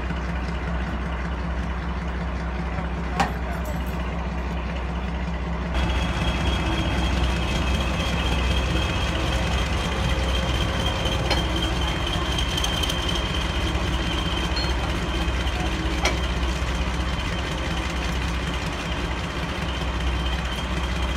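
Class 42 Warship diesel-hydraulic locomotive's twin Maybach V12 engines idling at rest, a steady deep hum with a thin high whine over it. There is one sharp click a few seconds in, and the sound gets louder about six seconds in.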